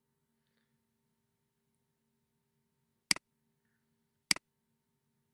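Computer mouse button clicked twice, about a second apart. Each click is a sharp press followed at once by its release, over a faint steady electrical hum.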